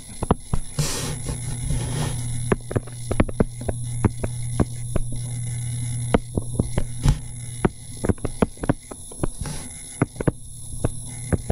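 Stylus tapping and scratching on a tablet screen while writing: a quick, irregular series of small clicks. A steady low hum runs under it and stops about seven seconds in.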